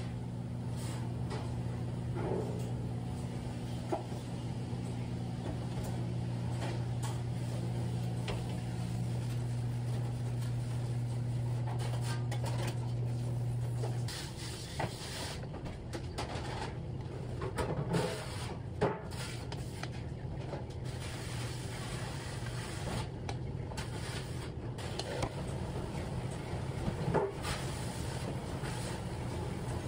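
Steady low hum of commercial kitchen equipment that cuts off suddenly about halfway through, under light scraping and a few soft knocks of cream being worked over a metal sheet tray with a spatula.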